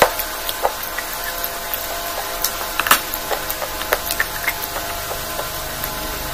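Close-miked chewing and mouth sounds: short wet clicks and smacks scattered irregularly over a steady background hum.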